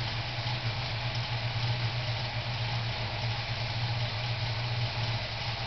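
Classic Ford Mustang fastback's engine idling steadily through its new dual exhaust, a low, even exhaust note.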